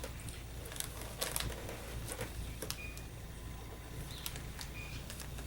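Faint rustling and clicks of plastic-bagged model kit sprues being handled in the box, over a low steady hum.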